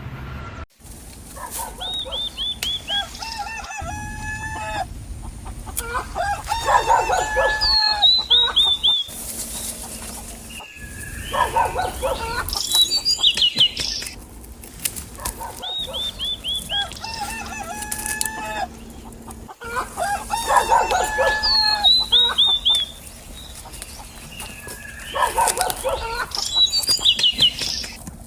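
Chickens clucking and a rooster crowing, the calls coming in bursts of several seconds with short gaps between.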